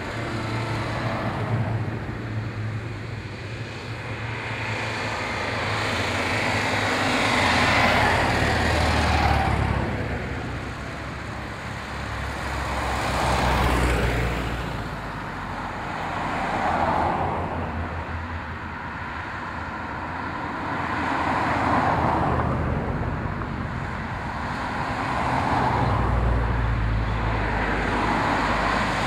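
Classic cars and vans driving past one after another, engine and tyre noise swelling and fading with each of several pass-bys. Near the start it is a Citroën 2CV's small air-cooled two-cylinder engine going by.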